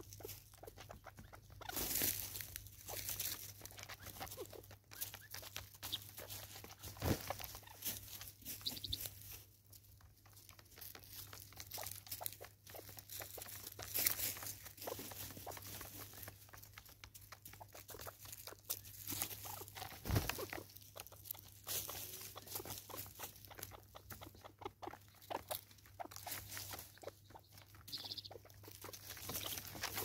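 Helmeted guineafowl pecking seed off the tops of wooden stumps: an irregular, continuous run of sharp beak taps on wood and the crunch of seed, with a few louder knocks.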